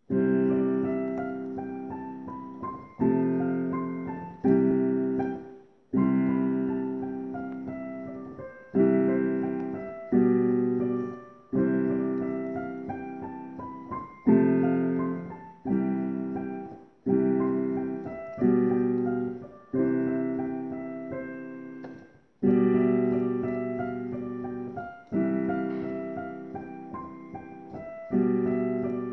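Slow, calm piano-keyboard playing: full chords struck about every second and a half, each left to ring and fade before the next.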